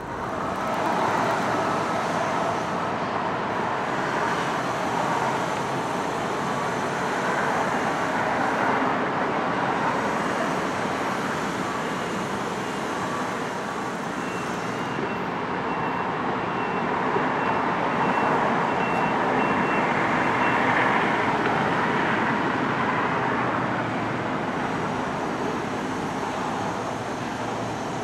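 Steady road traffic noise that swells and eases slowly as vehicles pass, with a faint thin whine in the middle.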